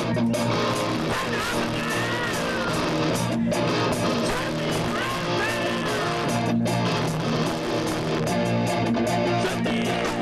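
Rock band playing live, led by electric guitar over bass guitar.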